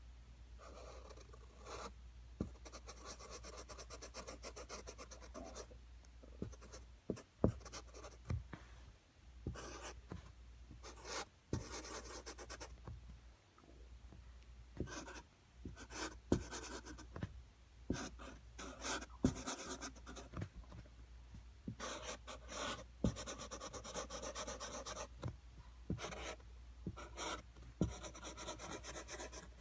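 Sharpie permanent marker drawing on a plastic bin lid: the felt tip scratches across the plastic in runs of short strokes with brief pauses, and a few sharp taps now and then.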